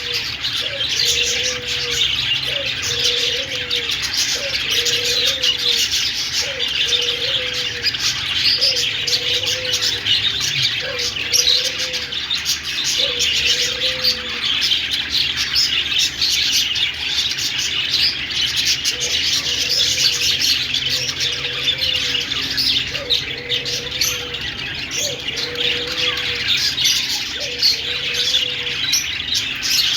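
Budgerigars chattering and chirping continuously in a dense, busy twitter. Beneath it, a low short note rises and levels off about once a second; it stops for a few seconds midway, then resumes.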